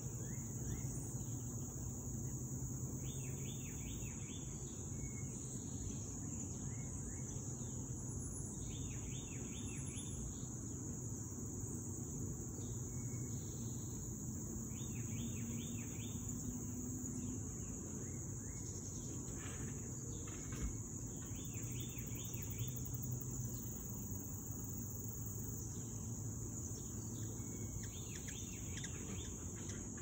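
A steady, high-pitched insect chorus, with short bursts of chirping every few seconds and a low hum that comes and goes.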